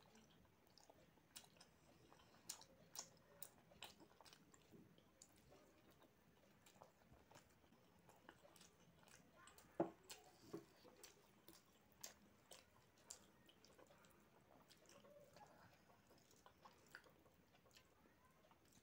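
Faint eating sounds picked up close to the mouth: chewing of chicken curry and rice with scattered wet mouth clicks, and soft squishing as rice is mixed with curry by hand. The loudest click comes about ten seconds in.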